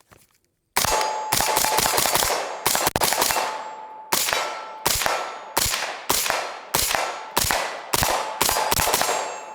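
A suppressed 5.56 AR-15, a PSA Sabre with a Dead Air Sierra5 silencer, firing a long string of shots. The first shots come close together, then they settle to about one every two-thirds of a second. A thin ringing tone hangs behind them. The rifle is extremely overgassed and has been burst-firing on single trigger pulls.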